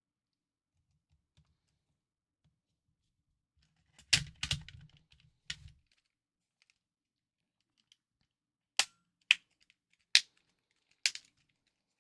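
Sharp clicks and taps of small plastic parts and tools being handled while a Nintendo DSi XL is taken apart: a quick cluster of clicks about four seconds in, then four single clicks spaced about half a second to a second apart in the second half.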